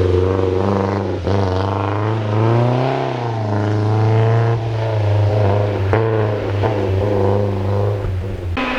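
Hill-climb race car engine under hard throttle, its pitch rising and falling through gear changes, with a couple of sharp cracks along the way.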